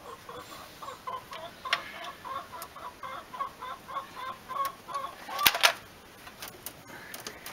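A hen clucking in a quick run of short notes for about five seconds, then a brief loud clatter about five and a half seconds in.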